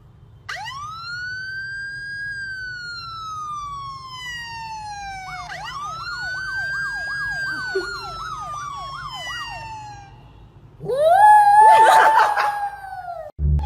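Emergency vehicle siren wailing in two long sweeps that rise quickly and fall slowly, the second joined by a fast warbling yelp. Near the end comes a shorter, louder wavering howl.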